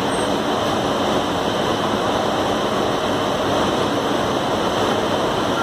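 Steady rushing noise of a moving passenger train, even throughout with no distinct knocks or tones.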